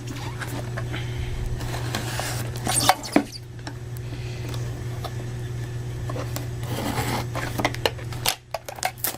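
Product packaging being handled and opened by hand: scattered clicks, taps and rustles, with a cluster of quick clicks near the end, over a steady low hum.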